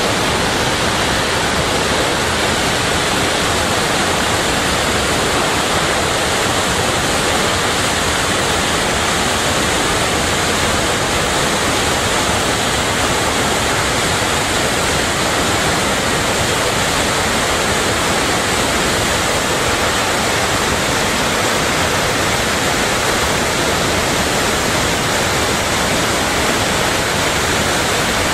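Large river waterfall pouring into the whitewater rapids below it: a loud, steady rushing of water that never lets up.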